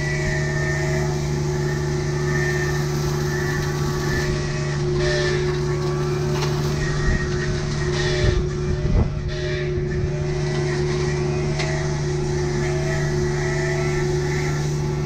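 A Kubota U55-4 mini excavator's diesel engine runs steadily at working speed, with a wavering hydraulic whine that fits the MTL XC5 brush cutter attachment spinning. A few sharp knocks come a little past halfway through.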